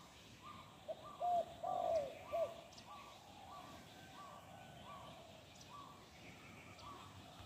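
Spotted dove cooing: a phrase of several low, down-curving coo notes about a second in, with a fainter, higher note repeating every second or so through the rest.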